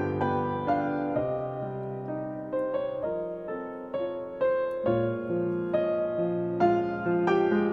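Background piano music: a slow, gentle piece of notes and chords struck one after another, each ringing and fading.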